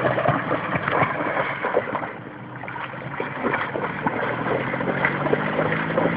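Water splashing and sloshing in irregular bursts, quieter for a moment about two seconds in, over a faint steady low hum.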